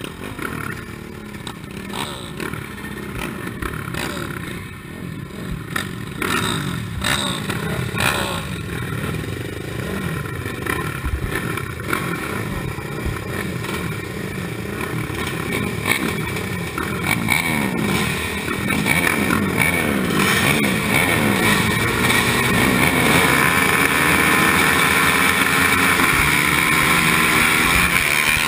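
Several racing quad engines idling and revving in short blips on the start line, heard from on board a Honda TRX450. In the last third they rise together to full throttle as the field accelerates away, loud and dense to the end.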